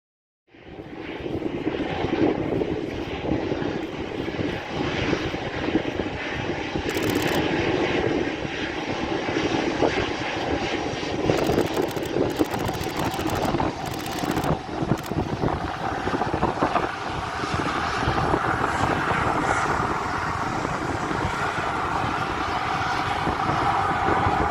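Jet engines of a Boeing 737-300, its CFM56 turbofans, running loud and steady as the airliner passes, with an engine whine growing stronger in the second half. Wind rumbles on the microphone throughout.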